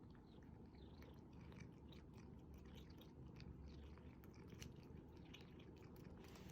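Faint, quick small clicks and smacks of a cat chewing and licking at a Churu puree treat.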